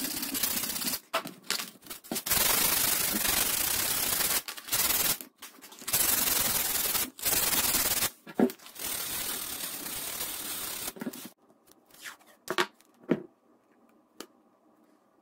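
Sandpaper rubbed by hand along a wooden dowel handle, in long spells of sanding with short breaks between them. The sanding stops about eleven seconds in, followed by a few faint crackles of blue painter's tape being pressed on.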